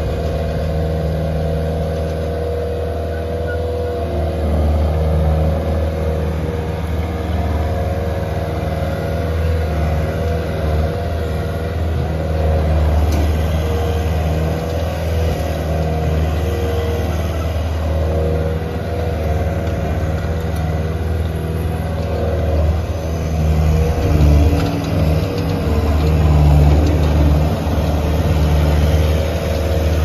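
Cat 289C compact track loader's diesel engine running steadily as the machine drives and turns, its note swelling louder in short spells, most strongly in the last few seconds.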